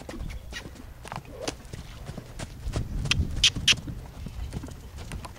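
Hoofbeats of a loose grey horse cantering on sand arena footing: a running series of dull thuds and clicks, with two sharp, loud clicks about three and a half seconds in.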